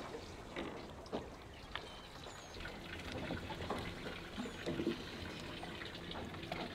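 Water lapping and trickling against a catamaran's hull, with scattered light clicks and knocks as the anchor chain and bridle hook are handled at the bow.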